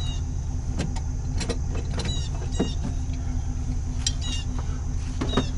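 Pickup truck's engine idling steadily, with a few short, high chirps over it.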